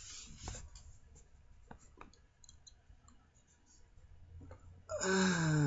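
Faint clicks and light rustling from a paperback book being held up and handled close to the microphone. Near the end a man's voice comes in with a drawn-out sound that falls in pitch.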